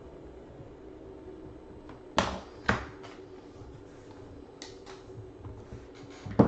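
Sharp knocks and clicks of hard card holders and box packaging being handled on a table: two loud knocks about two seconds in, a few lighter clicks, and another loud knock at the end, over a steady low hum.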